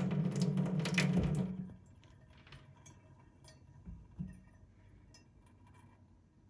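A small electric motor runs steadily and cuts off about a second and a half in. Light clicks follow, then two soft knocks close together.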